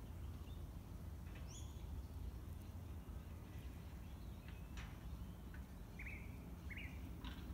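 Faint garden background: a steady low rumble with a few short, scattered bird chirps, two of them close together near the end.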